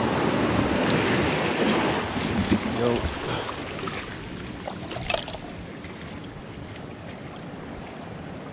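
Shallow surf washing and rushing over tidepool rocks. It is loud for the first three seconds or so, then eases to a quieter steady wash.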